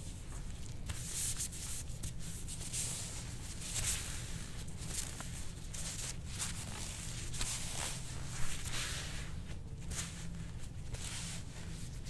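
Soft-tissue scraping: a scraping tool drawn repeatedly over oiled skin of the back, giving a string of soft rasping strokes, about one a second.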